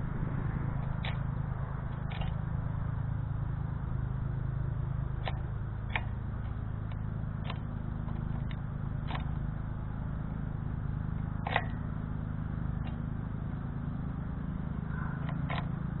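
Male American goldfinch pecking at seed on a feeder: scattered sharp clicks and taps, about a dozen, irregularly spaced, with one louder tap late on. Under them runs a steady low rumble.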